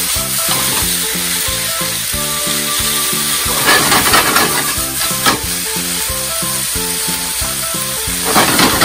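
Stir-fried noodles and vegetables sizzling in a hot frying pan while they are tossed and stirred with tongs, the sauce liquid cooking off. Louder surges of sizzle come about four seconds in, again a second later, and near the end as the food is turned over.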